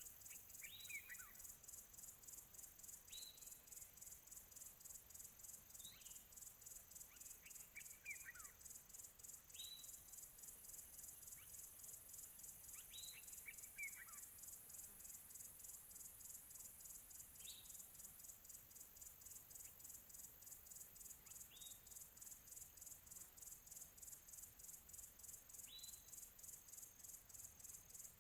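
Steady high-pitched insect chorus pulsing rapidly, with a bird giving short, sharp downslurred calls every few seconds; three times, near the start, about a third in and about halfway, a call runs on into a lower falling note.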